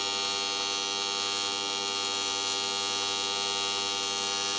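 TIG welding arc buzzing steadily as a bead is run on the slowly turning workpiece; an even electric buzz with no breaks.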